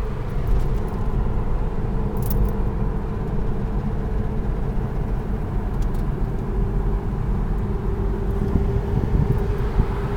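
Steady road and engine noise inside a moving Dodge car's cabin at highway speed, with a low even drone.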